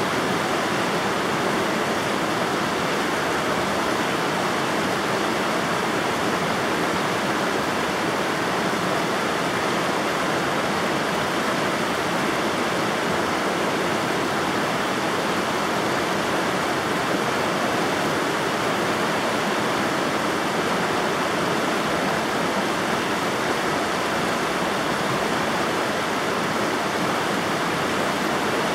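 River water rushing steadily, an even, unbroken noise that does not rise or fall.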